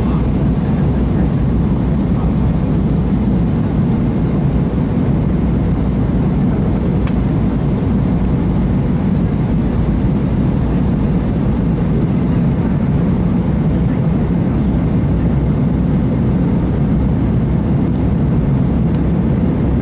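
Steady cabin noise inside an Airbus A320 airliner in flight: a dull, even rumble of engines and airflow, heaviest in the low range.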